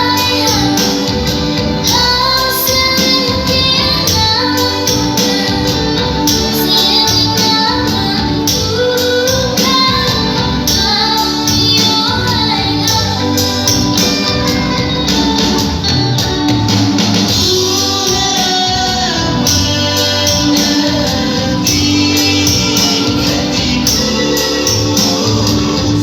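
Dolo-dolo dance song from Flores playing, with a female singing voice over a steady, upbeat rhythm.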